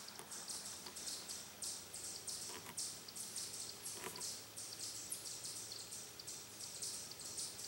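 Faint, high-pitched chirping repeating about three times a second, with two faint short tones about a third and halfway through. The tail of a .22 rifle shot dies away at the very start.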